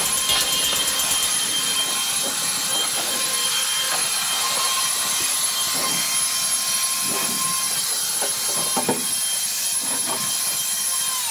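Handheld electric blower running steadily, a rushing of air with a constant motor whine.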